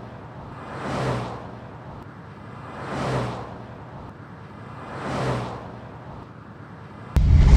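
A whooshing swell that rises and falls about every two seconds over a low steady hum, then a sudden loud burst of sound near the end.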